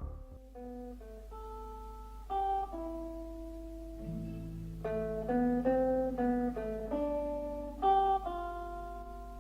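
Slow instrumental music: a guitar picking single notes one at a time, each ringing on, with a low bass line coming in about four seconds in.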